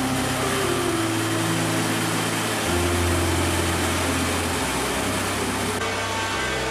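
Steady rushing machinery noise from apple-juice production, as a tipping trailer unloads apples into a washing flume, with the low notes of background music changing underneath.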